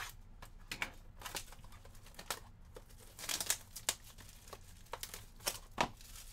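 Plastic shrink wrap being slit with a box cutter and pulled off a cardboard trading-card box, crinkling and tearing in short crackly bursts that are densest midway. Near the end come a couple of sharp clicks as the box is handled.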